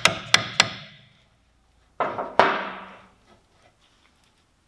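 Hammer blows on a car's front brake assembly while a new brake disc is seated on the hub. There are three quick metallic strikes, then a pause, then two more about two seconds in, and the metal rings briefly after each strike.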